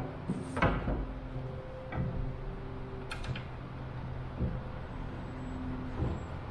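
Scattered knocks and light metal clicks from the landing-gear tube and wooden brackets being handled and fitted, a quick cluster of small ticks about three seconds in, over a steady low hum.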